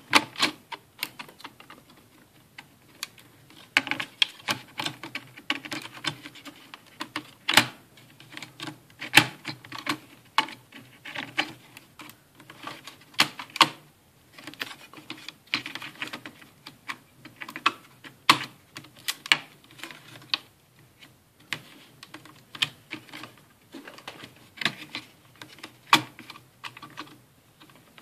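Irregular clicks, taps and scrapes of a metal-caged hard drive being worked into a Sony Vaio VGN-N38E laptop's drive bay, fitted under the lifted motherboard edge onto its SATA connector.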